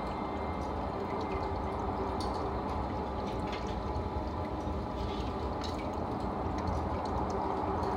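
Aquarium filter water trickling and bubbling steadily into the tank, with a low hum underneath and a few faint drips or bubble pops.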